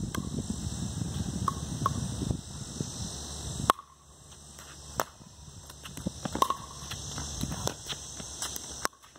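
Pickleball rally: sharp, hollow pops of paddles striking a plastic pickleball, and the ball bouncing on the concrete court. They come in a string of irregular hits starting a little under four seconds in, the loudest ones with a short ringing ping.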